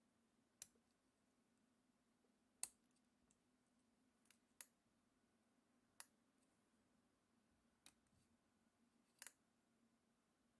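Faint, sharp metal clicks at irregular intervals, about seven in all, of lock-picking tools working a brass padlock, over a faint steady hum.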